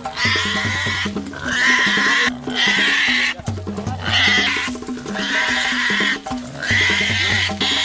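Background music with a steady repeating beat, over a pig squealing again and again in loud, high cries of about a second each with short pauses between.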